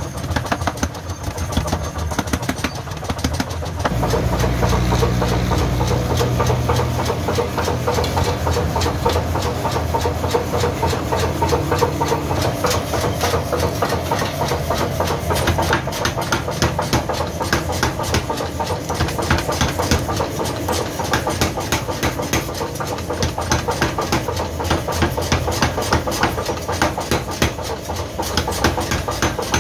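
Power forging hammer and its electric motor running: a steady machine drone with a fast, continuous clatter of knocks. A deeper low hum comes in about four seconds in.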